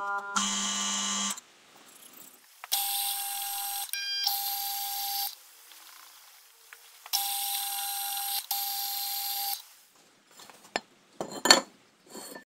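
Milling machine spindle drilling and then tapping holes in a steel hub flange, the sound sped up eightfold so its running comes out as a high, beep-like whine in three stretches with short pauses between. Near the end a few sharp knocks and clatter as a steel brake disc is handled onto the hub.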